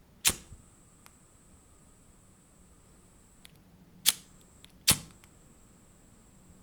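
Lighter being struck: three sharp clicks, one just after the start and two more about a second apart near the middle.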